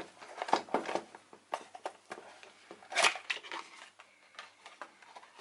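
Small clicks and rustles of a product box and its plastic packaging being opened and handled by hand, with a louder crackle about three seconds in.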